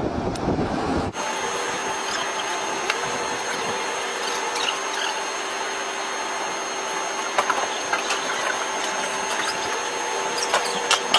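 Wind buffeting the microphone for about a second, then a steady electric machine whine inside a cargo aircraft's hold, with several constant tones and scattered light clicks and knocks as a helicopter is moved in.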